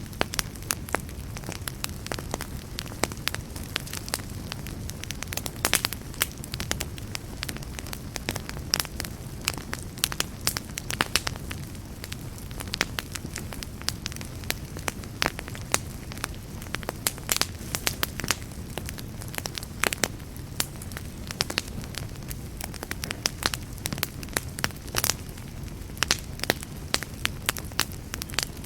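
Campfire crackling: wood burning with a steady low rumble and frequent irregular sharp pops and snaps.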